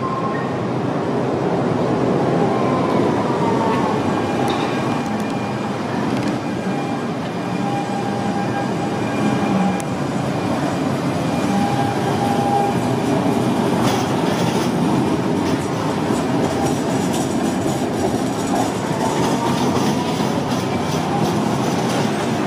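Modern articulated street tram running on its rails: a steady rumble of wheels on track, with faint high whines partway through.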